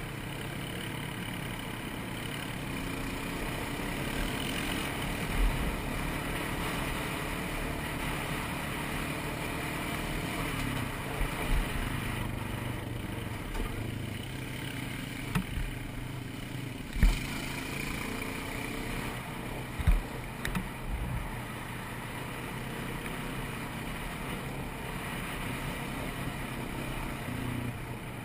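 ATV (quad) engine running as it is ridden, its pitch shifting a little with the throttle, with several short thumps, the loudest about two-thirds of the way through.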